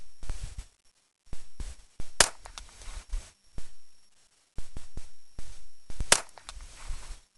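A GSG MP5-clone rifle firing subsonic rounds: sharp, light cracks, two of them much louder than the rest, about two seconds in and about six seconds in, with smaller clicks and knocks between.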